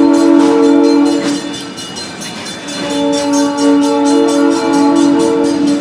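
Train horn sounding two long blasts, each a steady chord of several notes. The first ends near two seconds in, and the second starts about a second later.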